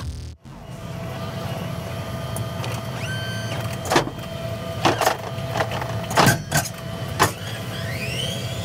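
Forklift loading pallets into a cargo van: a steady motor hum with a handful of sharp knocks and clanks as the load is worked in, and a rising whine near the end.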